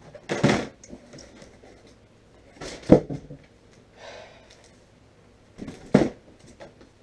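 Cardboard packaging being handled as a boxed item is pulled out of a shipping box: short rustling swishes, a sharp knock about three seconds in, and another knock near the end as the box is set down on a metal wire cart.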